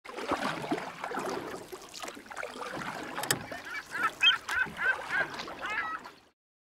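Honking bird calls over a rushing wash of noise, ending in a quick run of about six honks in the second half, then fading out near the end.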